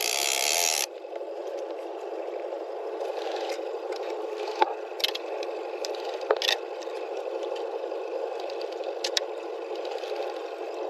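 Fishing tackle being handled while a planer board line is rigged: scattered sharp clicks and scrapes over a steady low hiss. A loud rushing hiss cuts off suddenly about a second in.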